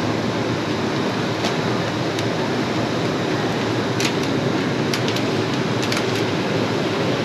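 Steady rushing background noise, like ventilation or a busy concourse, with a few short sharp clicks and clatters about four to six seconds in.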